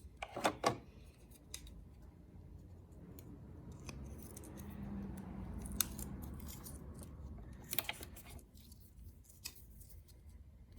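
Scissors snipping double-sided mounting tape: a few sharp snips and clicks, with soft rustling of the tape being handled in between.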